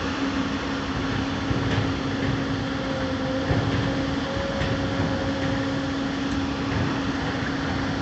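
Diesel engine of a three-axle tipper truck running steadily at low revs while the truck manoeuvres slowly in reverse: a constant low hum, with a faint higher whine joining in for a few seconds in the middle.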